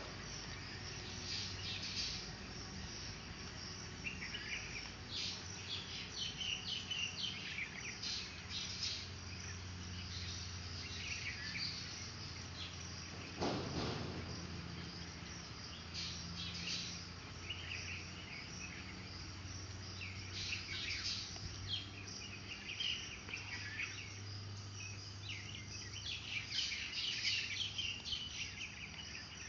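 Outdoor ambience of high, irregular chirping calls over a faint low steady hum, with a single knock about 13 seconds in.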